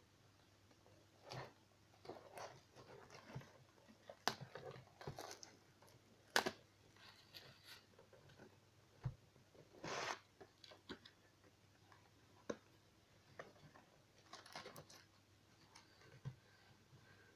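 Cardboard card box and foil card packs being handled: scattered rustles, taps and crinkles, with a longer tearing sound about ten seconds in as a pack is ripped open.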